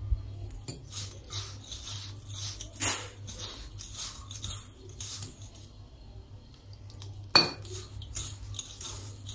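A hand mixing moist ground peanut-and-spice masala in a stainless steel bowl: fingers scrape and rub against the steel in short strokes, with two sharper clinks on the bowl, about three seconds in and about seven seconds in.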